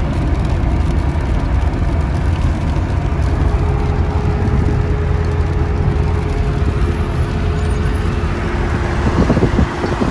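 Steady low rumble of engine and tyre noise from a vehicle travelling along a motorway, with some uneven buffeting near the end.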